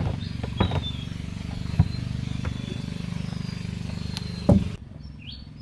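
A small motor running steadily with a fast pulsing beat, with a few sharp knocks and clicks, the loudest just before the motor sound cuts off suddenly near the end.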